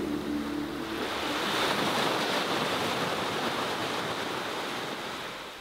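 Closing music stops about a second in, giving way to the steady rush of sea waves breaking on a shore, which swells and then fades out near the end.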